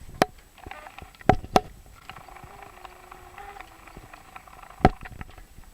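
Copper refrigerant tubing on an air conditioner being cut through with wire cutters: four sharp metallic snips, two close together about a second in and one near the end.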